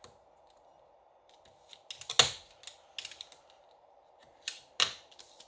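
A roll of double-sided tape being handled and applied to a paper card panel: scattered sharp clicks and taps, the loudest about two seconds in and another near the end.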